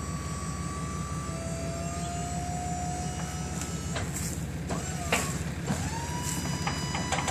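Steady low rumble of the motor driving a remote-controlled shed mover, with a few thin squeaks and sharp knocks as the shed is shifted across the gravel pad.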